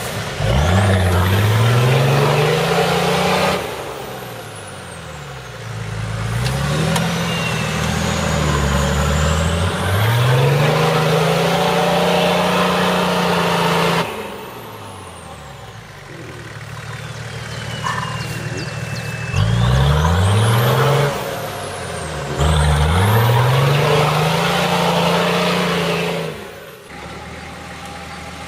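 Nissan Patrol Y61 turbo-diesel engine revving hard in repeated bursts, its pitch rising and falling as the four-wheel drive claws up steep banks, with a high turbo whistle that spools up and down with the revs. Near the end the engine settles to a steadier, quieter run.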